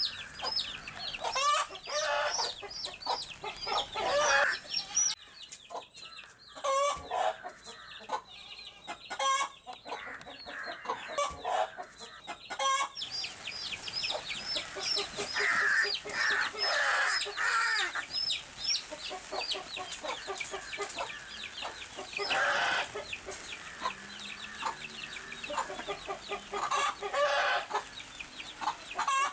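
A mother hen clucking while her chicks peep rapidly and constantly, with several louder squawks in the second half.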